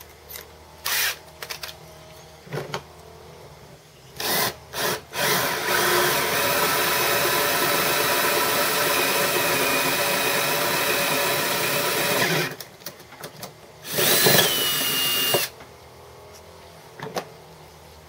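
Power drill boring out a hole in a cast aluminium base for a milling-machine bed. A few short trigger blips come first, then about seven seconds of steady drilling, and one more brief run near the end.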